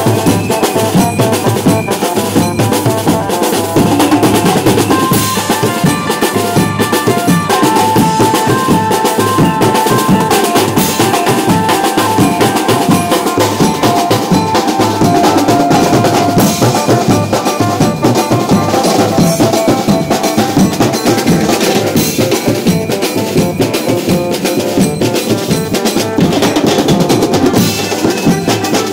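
A banjo-party band playing: the electric Indian banjo picks out a stepping melody over dense, continuous drumming.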